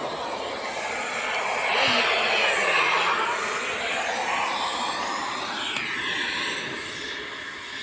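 Steady rushing hiss of gas from the end of a red hose line at the rail. It swells and shifts in pitch, loudest about two to three seconds in.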